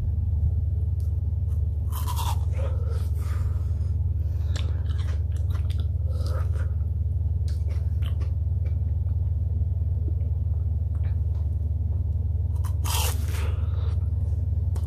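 Biting into and chewing a block of frozen yogurt close to the microphone: a series of short crunches, the strongest about two seconds in and another near the end, over a steady low hum.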